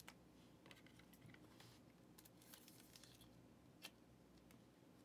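Faint rustles and small clicks of trading cards being handled and slid into a clear plastic card holder, with one sharper click near the end.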